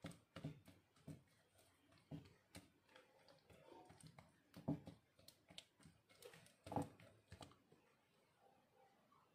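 Silicone spatula stirring mashed banana and egg in a glass bowl: faint, irregular taps and knocks of the spatula against the bowl, dying away near the end.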